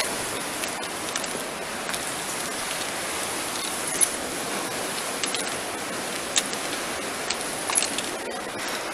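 Steady rushing of a river running high after a storm, with a few light clicks over it.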